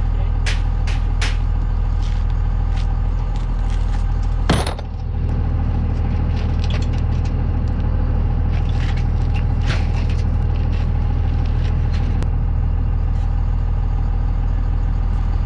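Steel drag frame with expanded-metal mesh being lifted and slid into a vehicle, clanking and rattling, with one loud metal bang about four and a half seconds in. A vehicle engine idles steadily underneath.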